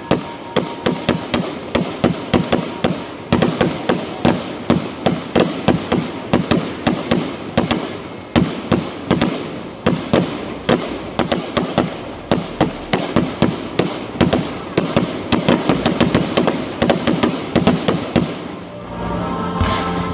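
Fireworks going off in a rapid barrage, several sharp bangs a second without a break, turning to a steadier hiss and crackle near the end.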